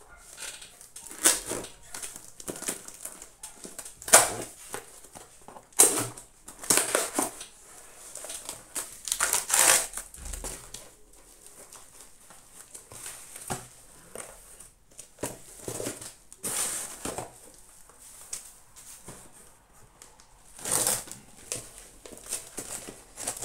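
A shipping parcel being unwrapped by hand: irregular crinkling, rustling and tearing of plastic and paper packing material, with several louder tearing bursts.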